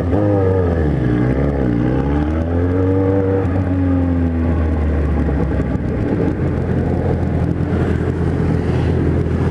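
Kawasaki Z1000 inline-four on a 4-into-1 exhaust, revving up and down through the gears over the first four seconds or so. After that it settles into a steady loud drone of engine and wind.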